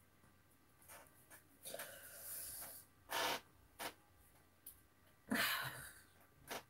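Faint scattered rustling and rubbing noises from someone moving close to the microphone, with a few short breathy bursts, the loudest about five seconds in.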